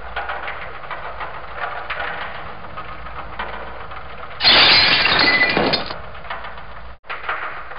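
Dubbed sound effects for a champagne glass toppling: a steady run of small crackles and clicks, then a loud crash-like clatter about four and a half seconds in that lasts about a second and a half and fades.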